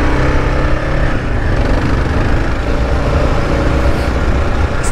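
Kawasaki KLR 650's single-cylinder engine running at a steady speed as the motorcycle rides along a dry dirt track.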